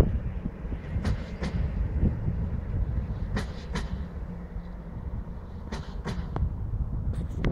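PESA Dart electric multiple unit passing, a steady low rumble of wheels on rail with sharp wheel clicks in pairs about every two seconds.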